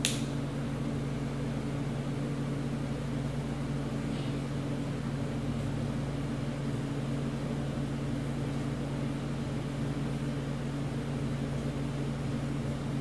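Xikar butane torch lighters, one a dual flame, burning with a steady hiss as two cigars are toasted, over a steady low hum.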